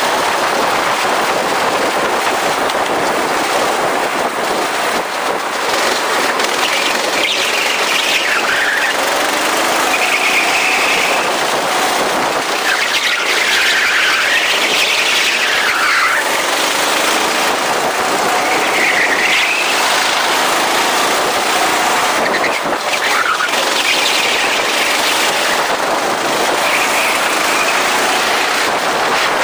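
Go-kart running at speed on a track: steady, loud engine and rushing noise, with high squeals that rise and fall every few seconds.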